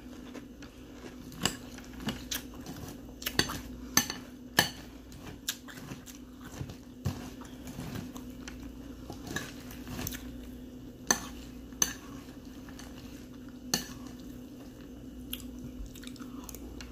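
Metal spoon clinking against a ceramic cereal bowl as cereal and milk are scooped up: sharp, irregular clinks, a few close together early and then more spread out. A steady low hum lies under them.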